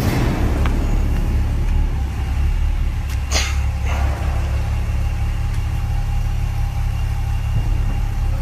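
Engine running steadily at idle, a low even drone, with two short knocks a little past the three-second mark.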